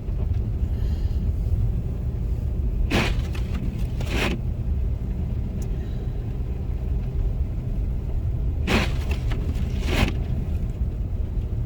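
Windshield wipers sweeping across the glass in pairs of strokes about a second apart, the pairs repeating every six seconds or so. Under them runs the steady low rumble of the car driving at about 28 mph.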